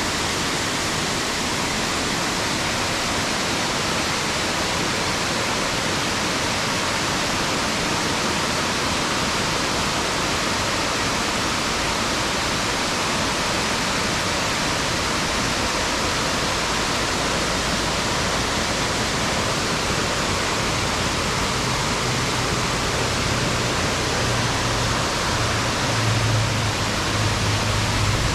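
Steady rushing of a rain-swollen sliding waterfall in spate. A low hum joins in over the last several seconds.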